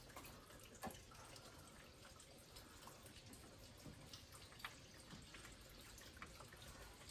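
Faint dripping and trickling of antifreeze draining out of the radiator, with a couple of light clicks.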